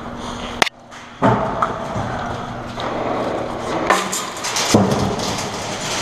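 Airsoft grenades (bangers) going off: a sharp bang a little over half a second in, after which the sound briefly cuts out. More sharp cracks follow about four and five seconds in.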